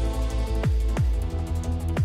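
Electronic background music with a steady heavy bass and deep kick-drum hits that drop in pitch, roughly once a second.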